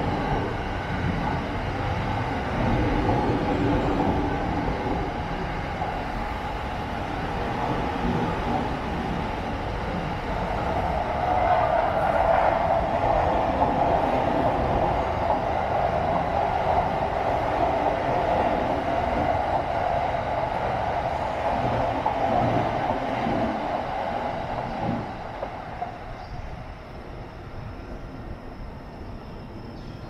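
Electric trains passing on the tracks, a steady running noise that grows louder about a third of the way in and dies away near the end.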